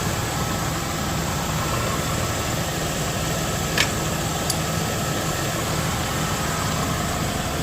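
1998 Chevy Venture's 3.4-litre V6 idling steadily, warmed up, with a short sharp click about four seconds in.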